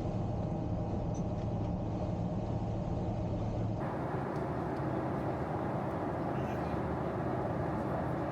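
Steady cabin noise of a Boeing 777-200ER in flight: the even roar of engines and airflow, with a low hum underneath. A little under four seconds in the sound changes abruptly to a brighter, fuller roar.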